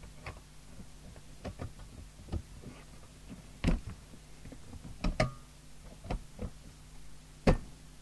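Irregular clicks and knocks of the CB radio's speaker and chassis parts being handled and fitted, about ten in all, the loudest near the middle and just before the end, over a faint steady low hum.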